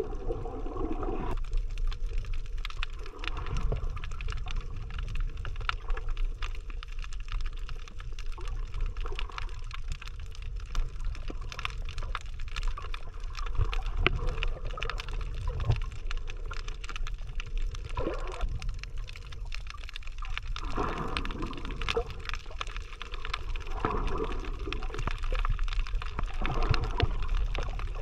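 Water noise heard by a camera held underwater: a steady low rumble with a constant fine crackle of clicks. Louder swells of water sound come near the start and again in the last third.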